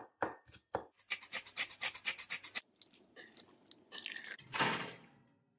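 A knife chopping red bell pepper on a wooden chopping board, about three strokes a second, then a quicker run of chopping for about a second and a half. After that, quieter sounds of a spoon stirring a thick sauce in a bowl, with a louder swish near the end.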